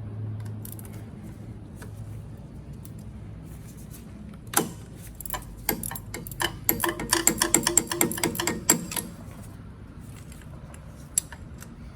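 Hand tools working on a diesel engine's oil line fitting: a sharp metallic clank about four and a half seconds in, then a few seconds of rapid metallic clicking like a ratchet wrench turning. A low steady hum runs under the first part and stops about four and a half seconds in.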